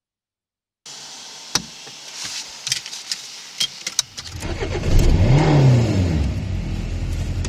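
Car ignition: a few sharp clicks of the key at the ignition, then about four seconds in the engine cranks and catches, its revs rising and falling back into a steady idle.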